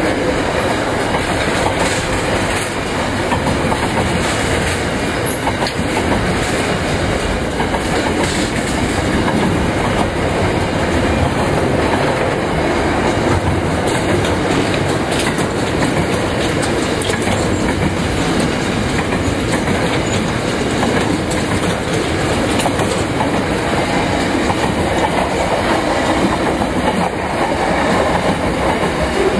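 Freight wagons of an SCT Logistics intermodal train (louvre vans and refrigerated vans) rolling steadily past: a continuous rumble of steel wheels on rail with repeated clicks of the wheels passing over the track.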